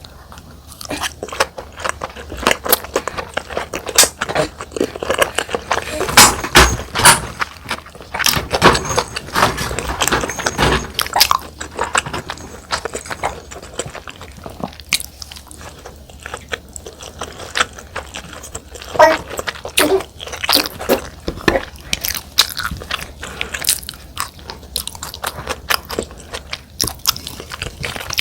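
Close-miked eating sounds: wet chewing and biting of rice with soy-sauce-marinated salmon, a steady run of irregular sharp clicks and smacks.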